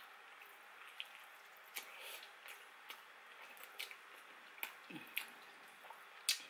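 Close-miked wet eating sounds of a person eating a sticky sauced chicken wing by hand: scattered irregular smacks and squelches of chewing and pulling meat from the bone.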